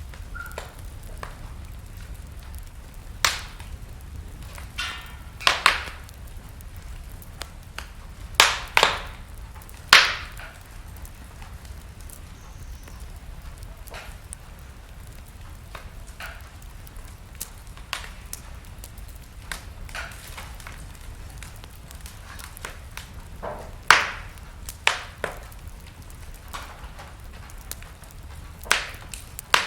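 Wood fire in a fireplace crackling, with a low steady rumble under irregular sharp pops and snaps; a cluster of loud pops comes around the middle and another late on.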